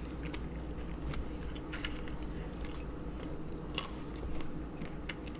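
Close-miked chewing of grapes, with short wet mouth clicks scattered through, over a steady low hum.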